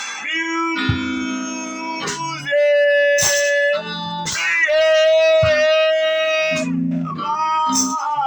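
Guitar music: strummed chords and long held notes, with no singing.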